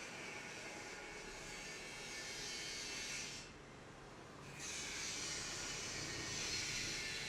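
Hands rubbing and working through hair during a head massage: a steady rustling hiss that breaks off for about a second midway, then resumes.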